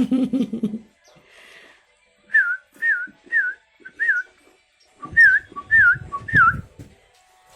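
A person whistling a string of about seven short, wavering notes, roughly two a second, to call a young sooty-headed bulbul.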